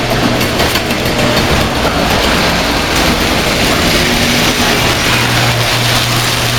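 Hail and heavy rain hammering down in a dense, steady clatter of countless small hits, over a steady low hum.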